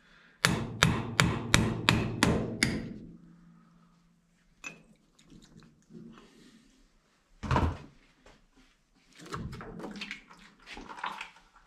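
A hammer strikes the steel wheel-end reduction hub cover of an LMTV Meritor axle about nine times in quick succession, roughly three blows a second, to knock the cover loose. Later there is a single thud, and near the end some scattered metal knocks.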